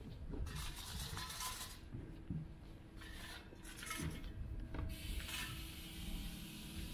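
Quiet outdoor street ambience while walking: a steady low rumble, with several short hissing swells and a faint steady hum coming in partway through.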